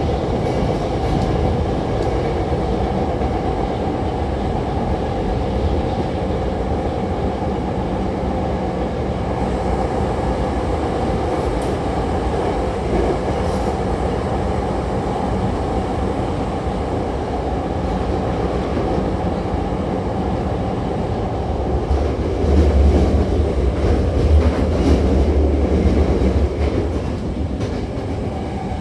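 Running noise of a Hankyu 7000-series electric commuter train heard inside the passenger car: a steady rumble of wheels on rail, with a louder, deeper rumble lasting about four seconds starting some 22 seconds in.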